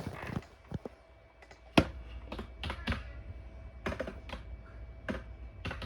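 About a dozen irregular sharp clicks and taps, the loudest about two seconds in, over a faint steady hum.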